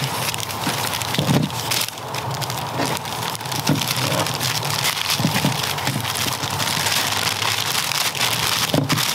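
Brown packing paper crinkling and rustling as it is torn and unwrapped by hand, in an irregular run of crackles.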